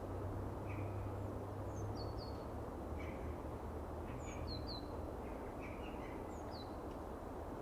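Small birds chirping: short, high calls that slide downward, repeated every second or so, over a steady low background rumble.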